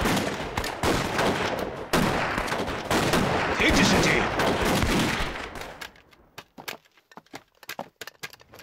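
Heavy volleys of rifle fire in a gunfight, many shots overlapping, for about five and a half seconds. The firing then stops, leaving only scattered faint crackles.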